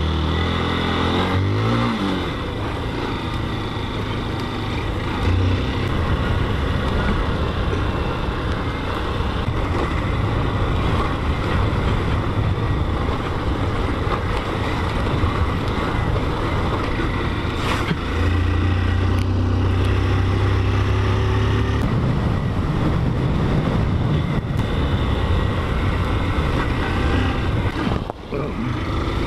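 Motorcycle engine running under way. The engine note drops in the first couple of seconds and holds a steady low hum for a few seconds past the middle.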